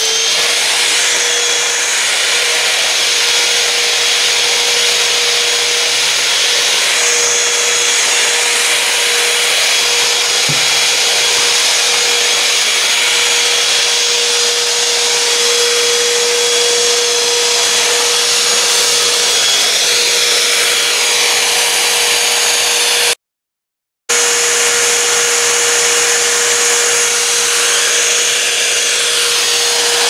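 Bissell Bolt Ion XRT cordless stick vacuum running at full power, a steady loud whir with a constant motor whine, as it is pushed over ceramic tile. The sound drops out for about a second roughly two-thirds of the way through.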